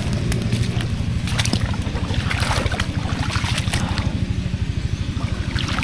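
A small boat's engine runs steadily with a rapid, even throb. Water splashes around the middle as something is handled in the water.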